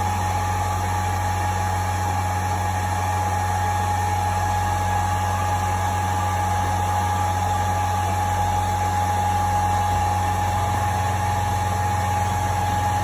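Steady hum of an electric blower or fan: a low drone with a thin steady whine above it and an even rush of air, unchanging throughout.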